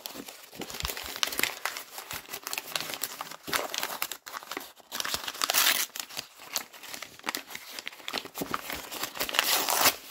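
Brown kraft wrapping paper being torn and crumpled by hand: a dense crackling rustle of paper, with louder tearing about halfway through and again near the end.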